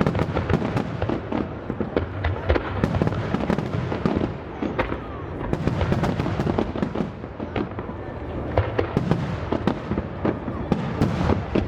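Fireworks display: a dense, continuous barrage of overlapping booms and crackling bursts, with no pauses.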